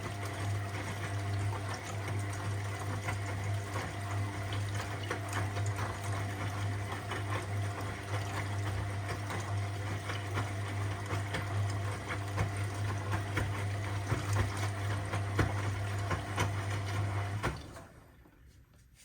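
Washing machine running with a steady motor hum over water sloshing and small clicks in the drum; the motor cuts out near the end.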